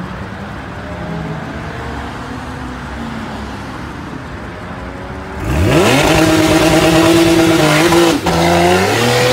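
Porsche 911 flat-six engine running steadily, then revved hard about five and a half seconds in: the pitch sweeps up sharply and holds high and loud, drops for a moment near the end, then climbs again as the car pulls away hard.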